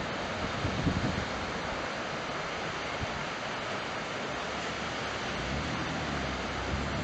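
Steady wash of surf breaking along a sandy beach, with gusts of wind buffeting the microphone about a second in. A low engine hum comes in near the end.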